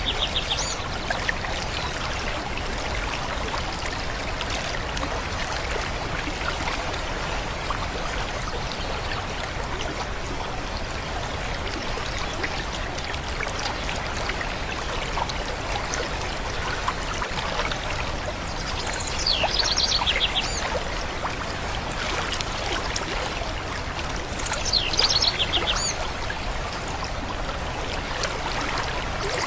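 A stream running steadily, with a songbird singing short high trilling phrases now and then, twice in the second half.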